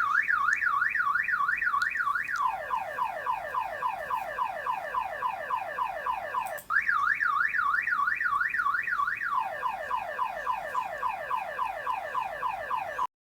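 Electronic siren alarm tone of a homemade emergency-alert signal, in a car-alarm style. It starts with a fast, high up-and-down warble, about three cycles a second, for a little over two seconds, then a string of quick falling sweeps, about four a second. The pattern repeats once and cuts off suddenly near the end.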